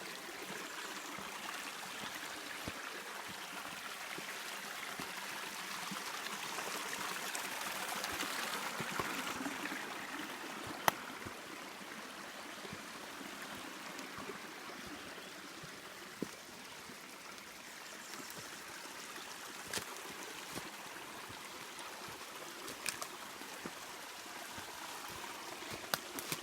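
Waterfall rushing steadily, swelling a little about a third of the way in, with a few sharp clicks here and there.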